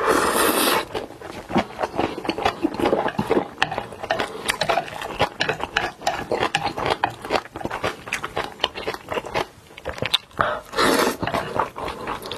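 Close-miked eating sounds: wet chewing with many small clicks and smacks. There are longer, louder noisy stretches at the start and again about 11 seconds in.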